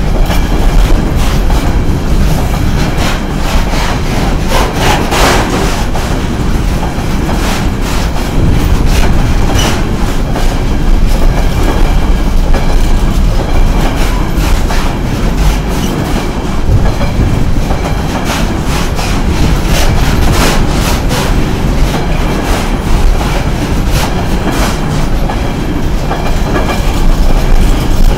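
Loaded container wagons of a freight train rolling past close by: a loud, steady rumble of wheels on rail, broken by frequent irregular clicks and clatter as the wheels cross rail joints.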